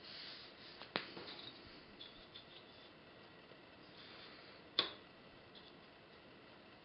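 Faint scratching of a pencil on paper as lines are drawn, with two sharp clicks: one about a second in and a louder one just before five seconds.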